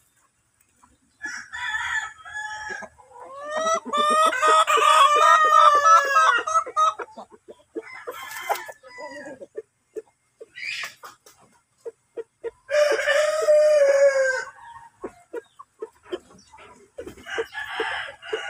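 Roosters crowing twice, two long calls about four seconds in and again about thirteen seconds in, over hens clucking in short scattered notes.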